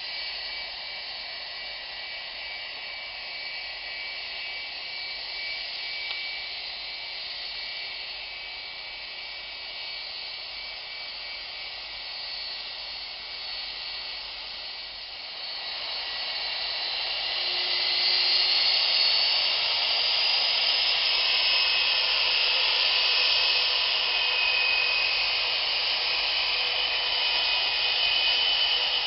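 Jet airliner engines whining on the runway: a steady high whine with several piercing tones that grows louder about halfway through as the aircraft comes closer, one tone climbing a little in pitch.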